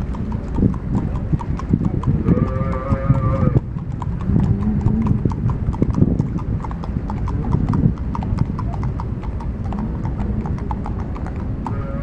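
Horses' hooves clip-clopping at a walk on a wet asphalt road as riders pass, mixed with the hooves of a herd of cattle. A few drawn-out animal calls rise over the hoofbeats, the clearest one about two to three seconds in.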